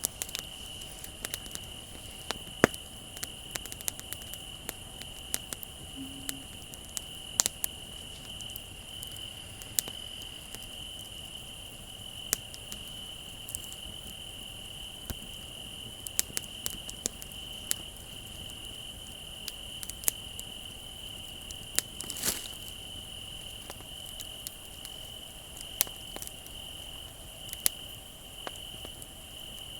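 Crickets trilling steadily while a wood bonfire crackles, with irregular sharp pops, a couple of them louder than the rest.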